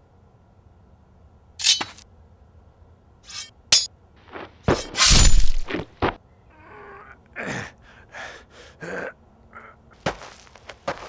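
Staged sword-fight hits and swishes: a run of separate sharp strikes and falling whooshes, with the loudest, longest crash about five seconds in.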